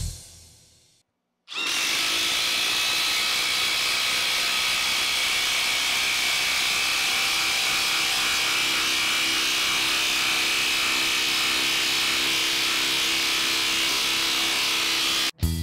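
Ridgid R86012 18V brushless 1/2 in. mid-torque impact wrench driving a 1/2 in. by 8 in. lag screw into wood. It starts after about a second and a half of near silence, runs steadily for about fourteen seconds, then stops abruptly.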